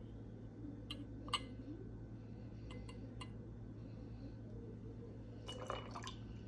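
Lime juice poured from a small glass pitcher into a stainless steel jigger, with faint clinks of glass touching metal and one sharper clink about a second in. Near the end a short cluster of clinks and a brief ringing tick as the jigger is emptied over ice in the glass.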